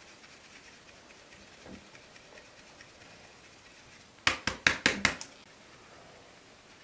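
A quick run of five sharp wooden knocks, about four seconds in, from flour-making tools: a wooden scoop and a wooden-rimmed flour sieve knocking against a plastic mixing bowl. Faint regular ticking runs underneath.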